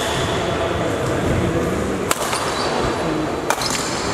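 Badminton rackets hitting a shuttlecock in a rally: three sharp cracks, at the start, about two seconds in and about three and a half seconds in, over a steady murmur of crowd chatter.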